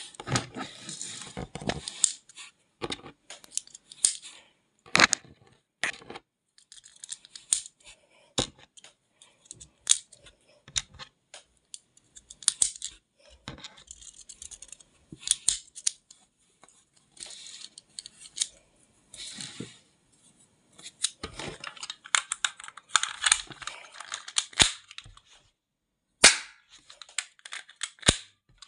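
A gun being fired over and over, sharp cracks and clicks at an uneven pace across the whole stretch, with crackly noise between the shots. It does not go off every time.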